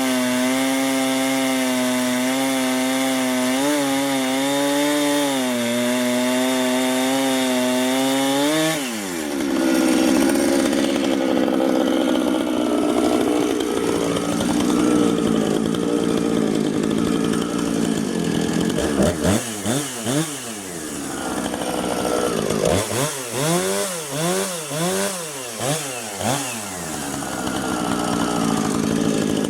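Husqvarna Rancher 455 two-stroke chainsaw with a 24-inch bar and ripping chain, ripping a log lengthwise in a chainsaw mill. It runs steadily at high revs, then about nine seconds in its engine speed drops sharply and it runs on under load with a rougher sound, the pitch rising and falling several times.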